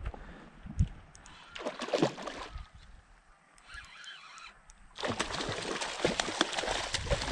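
River water splashing and sloshing: a couple of separate splashes in the first two seconds, then steady, busy splashing from about five seconds in.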